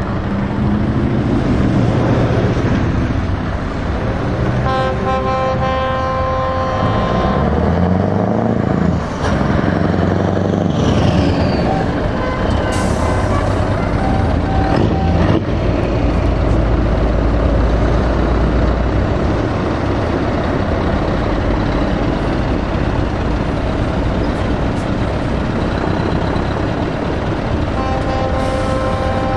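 Scania heavy tractor units, one an R580 V8, pulling away and driving past, their engines revving up as they go through the gears. An air horn sounds a steady chord for about three seconds about five seconds in, and again near the end.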